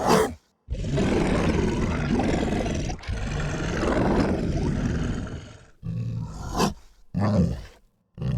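Dog growl sound effect: a short growl, then one long rough growl lasting about five seconds, then three short growls, each cut off abruptly.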